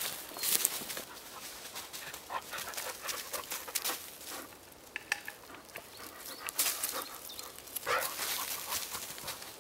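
Footsteps and rustling in dry fallen leaves, with short crackles and light knocks as wooden poles are handled.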